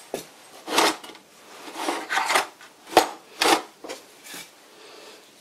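Small brass and steel parts clinking and rattling in a plastic tub as it is handled and slid across a wooden workbench: a run of clatters and scrapes, the sharpest about three seconds in, dying down near the end.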